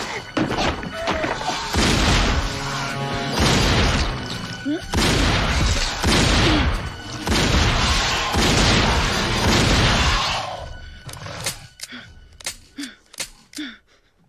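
Violent film fight between a werewolf and a dog: loud crashing and thudding over dramatic music. In the last few seconds it thins to a few sharp knocks.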